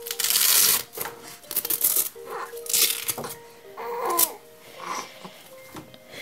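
Hook-and-loop (Velcro) tabs of a baby's swaddle wrap being pulled open: several short ripping sounds, the first and longest at the start, with fabric rustling, over soft background music.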